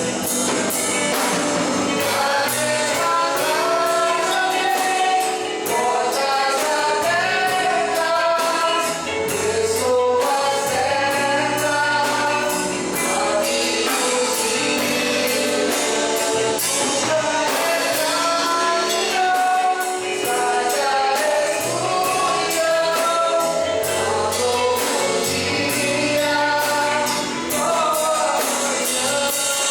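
Live gospel worship song: voices singing a melody over bass and drums with a steady beat.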